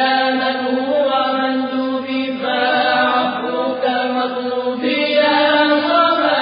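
Chanted recitation by a single voice, holding long notes that bend and waver, with a new phrase starting about every two to three seconds.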